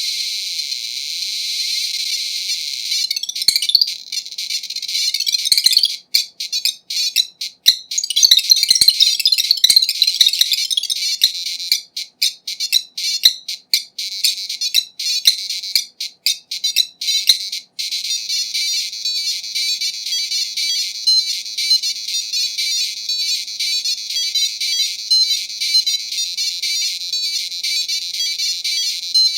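Demo music beeping from the PC speaker of a replica IBM PC XT, shrill and alarm-like, choppy and stuttering between about six and eighteen seconds in.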